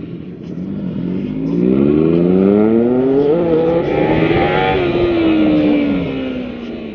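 A sport motorcycle accelerating hard past the microphone: its engine note climbs in pitch through the revs, then drops steadily and fades as the bike goes by and pulls away.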